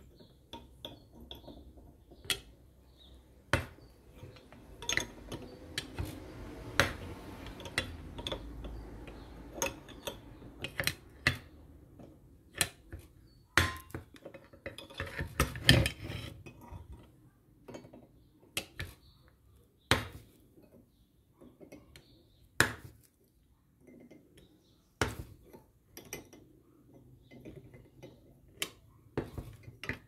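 Homemade steel pulley puller being worked with a wrench on a washing-machine motor's pulley: irregular metal clinks and knocks of the wrench and steel bar, with stretches of grating as the screw is turned and the sharpest clank about sixteen seconds in.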